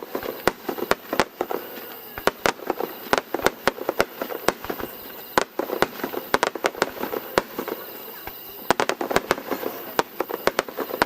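Aerial fireworks bursting in quick, irregular volleys of sharp bangs and cracks, several clusters of many reports close together.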